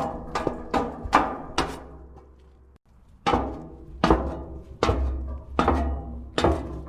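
Footsteps on metal stairs, each step a thud with a ringing metallic tail. The first run of steps fades out about two seconds in. After a short break a new run begins at a slower pace.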